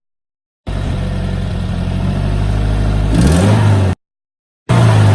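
2018 Subaru WRX's turbocharged flat-four engine running and revved, heard in two short pieces broken by sudden silences, with the loud clacking noise that comes on with throttle. The owner doubts it is the turbo or a loose bolt and suspects something internal.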